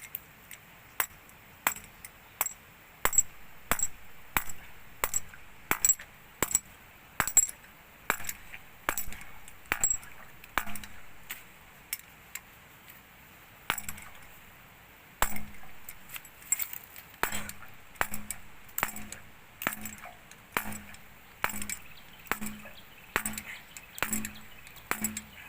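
Repeated sharp knocks with a light metallic clink, about one and a half a second, pausing briefly around the middle.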